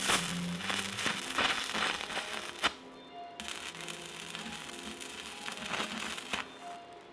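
Electric arc welding on a steel gas cylinder: the arc crackles and spits in two runs, the first for nearly three seconds, then after a short break a second of about three seconds. Background music plays underneath.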